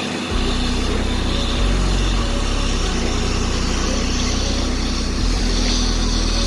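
Heavy diesel engine of a truck-mounted borewell drilling rig running steadily.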